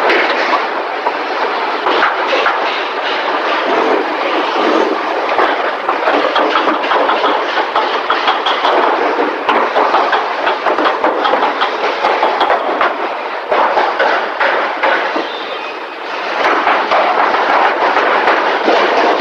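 Car assembly-line factory noise: a steady din thick with metallic clatter and knocks.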